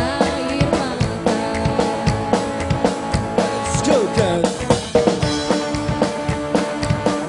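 A live rock band playing: a steady drum-kit beat with bass drum and snare, under electric guitar.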